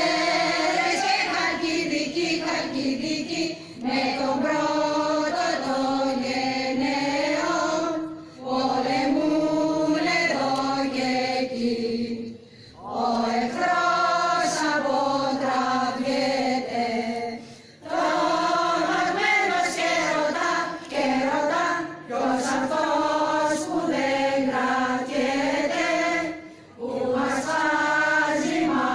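A choir chanting a slow hymn in phrases of about four to five seconds, with short breaks between phrases.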